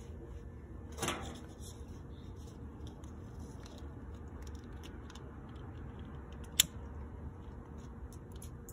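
Click of a long-nosed utility lighter's piezo igniter being pressed, a single sharp snap about two-thirds of the way in, over a low steady rumble with light handling clicks and a brief scrape about a second in.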